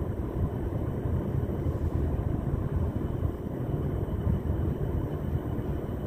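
Steady, uneven low rumble with no clear rhythm or tone.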